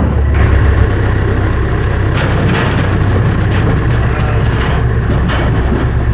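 Farm vehicle's engine running steadily, with a few knocks and rattles over it.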